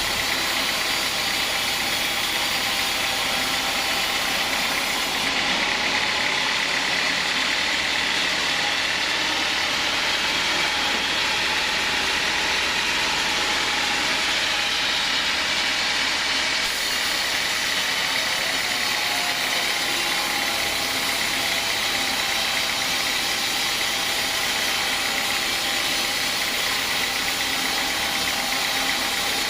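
Homemade engine-driven sawmill running steadily, a continuous loud mechanical noise with a steady high tone in it.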